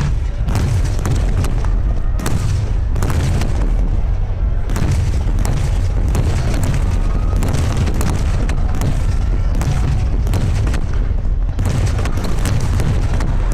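Water-launched starmine fireworks bursting in a dense, unbroken barrage: many sharp cracks a second over a constant heavy booming rumble.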